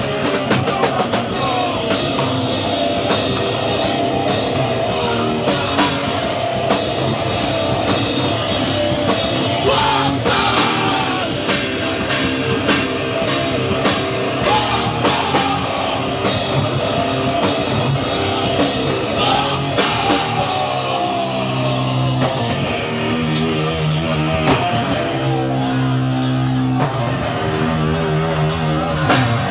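Hardcore punk band playing live: distorted guitars and fast drums, with shouted vocals. About two-thirds of the way in, the guitars move to held, wavering chords.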